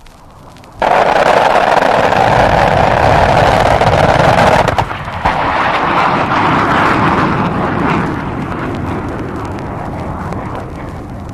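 Loud rushing roar from a vintage U.S. Air Force sound-effects recording, starting suddenly about a second in, holding steady for a few seconds with a brief dip near the middle, then slowly fading.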